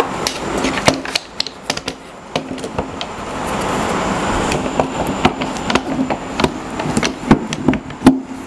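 Irregular sharp clicks and knocks of metal parts as a router motor is handled and seated into a router lift, the loudest a little after the start and near the end, over a low steady hum.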